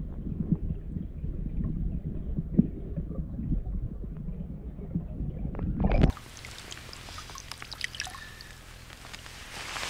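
Muffled low rumbling and knocking heard through a camera held underwater against a boat hull. About six seconds in, the sound cuts to open air: light splashing and drips of water from a gloved hand lifted out of the lake.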